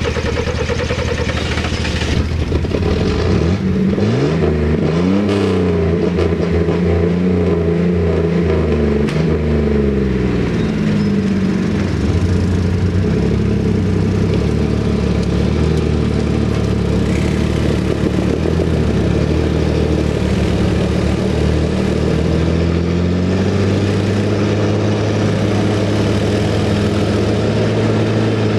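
Yamaha Rhino side-by-side engine working hard while pulling a stuck pickup. It revs up and down several times in the first ten seconds, then runs at a fairly steady high speed under load.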